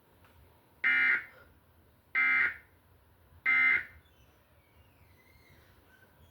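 Emergency Alert System End of Message: three short, buzzy bursts of digital data tones, each about a third of a second long and roughly a second apart. They signal that the severe thunderstorm warning broadcast is over.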